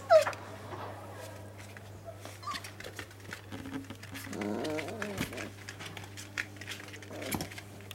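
Dogo Argentino puppies squealing and whining as they play, with a sharp falling yelp right at the start (the loudest sound), short high squeaks, and a longer wavering whine about four seconds in. A steady low hum runs underneath.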